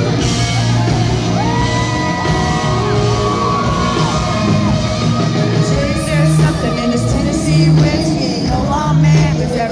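Live band playing with a woman singing, heard from the audience in a large, echoing hall, with whoops and shouts over the music.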